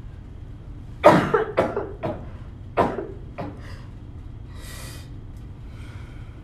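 A young woman coughing hard, about five harsh coughs starting about a second in, followed by a short breathy hiss.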